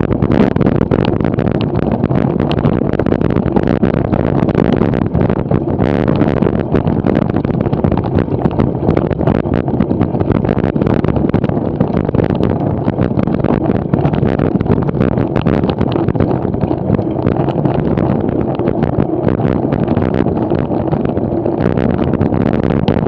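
Wind rumbling on the microphone of a camera mounted on a cyclo-cross bike ridden over a sandy, rutted dirt course. Many short clicks and knocks run through it, the bike rattling over the rough ground.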